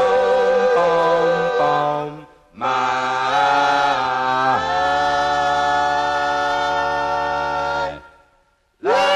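Doo-wop vocal group singing long held chords in close harmony on a 1961 45 rpm record. The chord steps down twice, breaks off about two and a half seconds in, then returns with a deep bass note held for several seconds before cutting off near the end.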